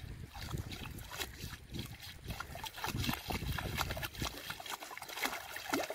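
Light water sloshing and small splashes in a small weed-choked pool as a fishing rod tip is worked in the water, with an irregular crackling rustle of dry weeds throughout.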